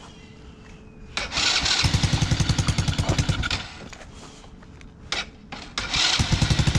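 Taotao Boulder 125 ATV's small single-cylinder four-stroke engine being started cold with the electric starter: it catches and runs briefly, dies out, and is started again near the end, settling into a steady run.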